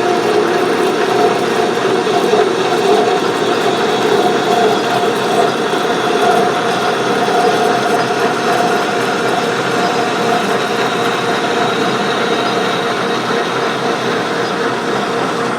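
Metal lathe running steadily under power with the half nut engaged, taking a spring pass on a lead screw thread: a repeat pass at the same depth where the tool barely cuts. It is a steady machine hum with a held mid-pitched tone.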